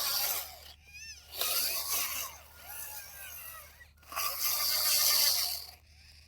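Small electric motors and gearboxes of radio-controlled toy construction machines whining in bursts, their pitch rising and falling as they speed up and slow down, with brief pauses between runs.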